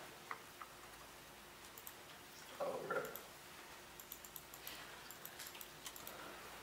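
Faint scattered clicks of laptop keys and trackpad being worked, with one brief louder sound about two and a half seconds in.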